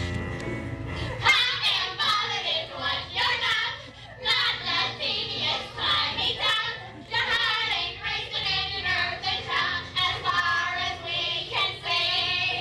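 A group of young voices singing in high, wavering phrases on stage, starting about a second in.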